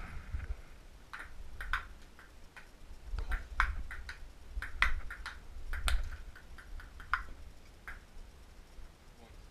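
Table tennis ball ticking off the table and paddles in a rally: a run of sharp, irregular clicks, some in quick pairs, from about a second in until near the end.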